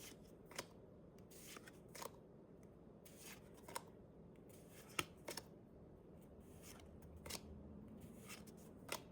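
Faint, irregular flicks and clicks of trading cards being handled and slid past one another while a freshly opened Pokémon booster pack is looked through.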